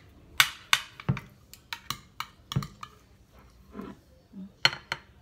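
Metal serving utensils clicking and scraping against a glass baking dish as enchiladas are lifted out: a string of irregular sharp clinks and taps.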